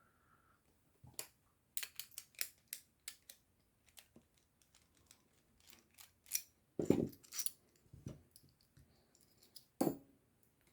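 Irregular small metallic clicks and taps of an opened Lockwood 334B45 padlock and its lock-picking tools being handled, with louder knocks about seven seconds in and again near the end.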